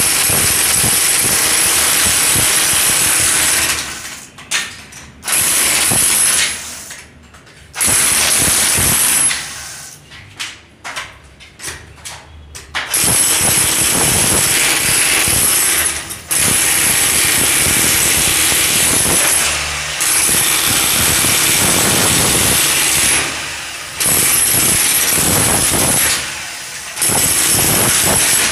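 Electric demolition hammer chipping a concrete wall, its chisel bit pounding rapidly in long runs. It stops and restarts several times, with the longest breaks about a third of the way in and shorter ones later.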